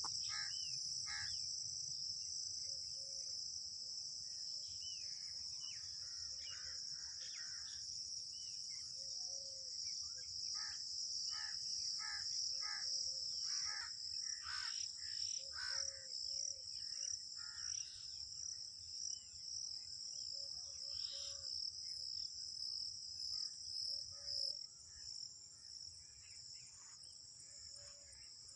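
A continuous high-pitched insect chorus of crickets chirring, with short bird calls scattered over it, most of them in the middle stretch.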